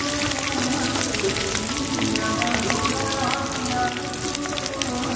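Battered cauliflower deep-frying in a kadai of hot oil: a steady sizzle with many small crackles, under background music.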